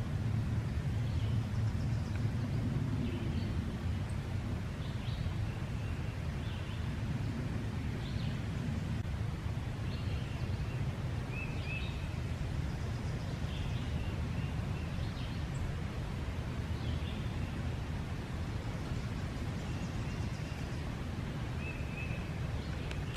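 Outdoor pond-side ambience: scattered short bird chirps every second or two over a steady low rumble.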